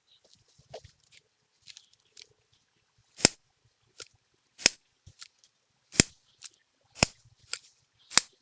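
Five loud, sharp cracks a little over a second apart, starting about three seconds in, with faint clicks and rustling before and between them.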